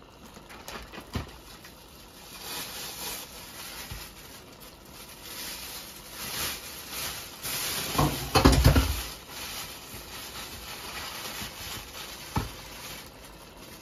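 Mackerel stew bubbling in a pot on the stove, the thick sauce popping and spitting in irregular patters. About eight seconds in there is a dull low thump, the loudest sound, and a couple of light knocks.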